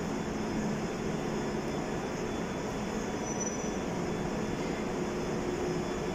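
London Underground Piccadilly line 1973 Stock train rolling slowly along the platform as it pulls in, a steady rumble of motors and wheels with a short high whine about halfway.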